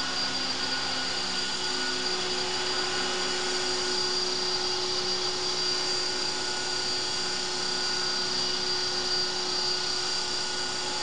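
CopterX 450 Pro electric RC helicopter hovering: a steady high whine from its motor and gears over the whir of the rotors.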